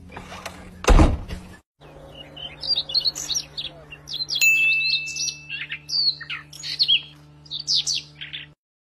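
A single loud thump about a second in, then birds chirping in many short, high calls with one held whistle near the middle, over a faint low hum.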